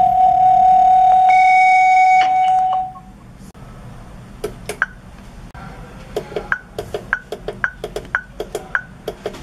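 An electronic video intercom sounds a loud, steady single-pitch beep for about three seconds. After a short gap, its door station's keypad gives a run of short key beeps, about ten in quick succession, as a password is entered and the menus are paged through.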